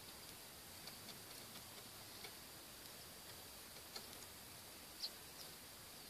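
Faint begging cheeps of nestlings at a ground nest: a scatter of very short high-pitched ticks, the loudest about five seconds in, over a quiet hiss with a thin steady high tone.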